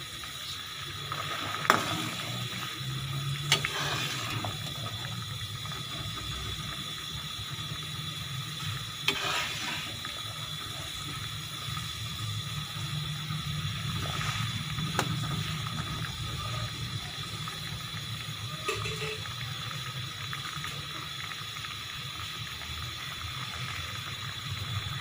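White mulberries and water simmering in a karahi on the heat: a steady low bubbling rumble with a few faint knocks now and then.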